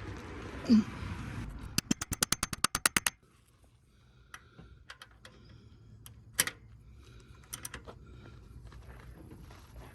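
A socket ratchet clicking rapidly, about nine clicks a second for just over a second, with a short knock just before it. Scattered light tool clinks and taps follow.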